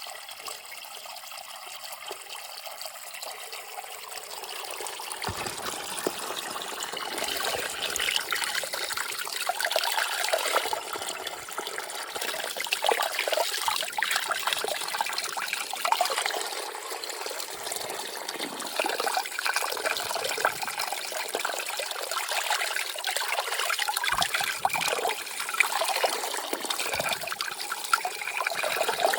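Water trickling and splashing over stones, like a forest brook, steady and gradually growing louder over the first several seconds.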